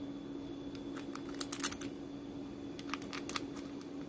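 Small metallic clicks of a stainless steel nut and flat washers being handled on a battery cell's threaded terminal stud, in two short clusters about a second and a half and three seconds in. A steady low hum runs underneath.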